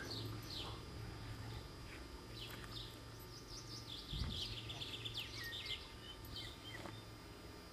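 Small birds chirping, with a quick run of rapid trilled notes about halfway through, over a low steady hum. A single dull low thump comes about four seconds in.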